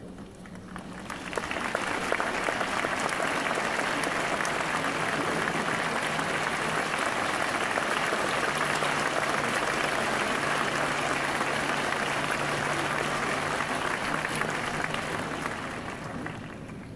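Audience applauding: the clapping swells in about a second in, holds steady, and dies away near the end.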